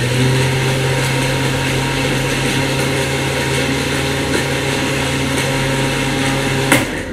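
Electric countertop blender running steadily at one speed, blending a milk smoothie of barley porridge and sago (sabudana) that had been too thick. It stops with a click near the end.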